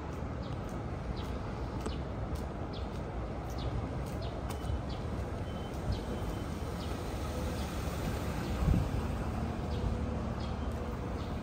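Street ambience: a steady low hum of distant city traffic, with short light ticks about twice a second, like walking footsteps. A faint low engine hum joins in the last few seconds.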